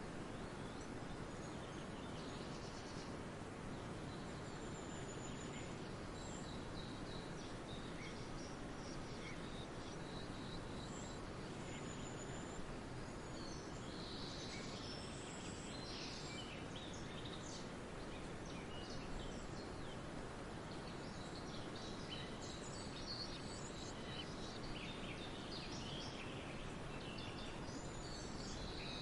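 Several small birds chirping and trilling, their short high calls coming at irregular intervals, over a steady hiss of outdoor background noise.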